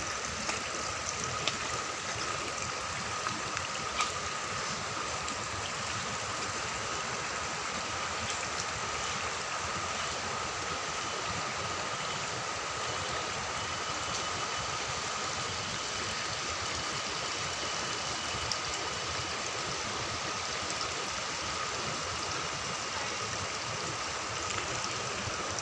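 Steady rush of water from a small forest stream and waterfall, with a thin steady high tone running underneath and a few faint clicks.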